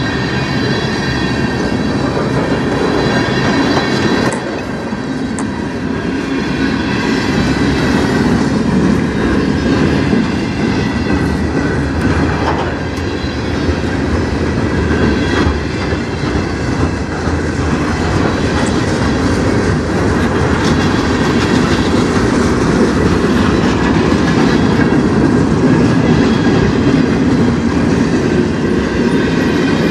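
Freight cars of a manifest train rolling past: steel wheels rumbling and clicking over the rail joints, with a thin high ringing from the wheels and a few sharp clanks.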